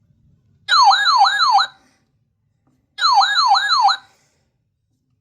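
Weather radio's electronic alert siren sounding in two short bursts of about a second each. Each burst is a rapid, repeating downward-sweeping yelp, about three sweeps a second.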